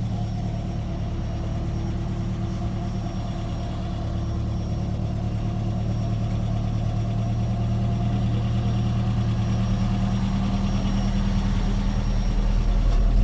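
A motor vehicle's engine running steadily with a low hum, slowly growing louder toward the end.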